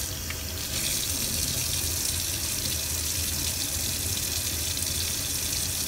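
Tap water running steadily into a sink, used to rinse the baby.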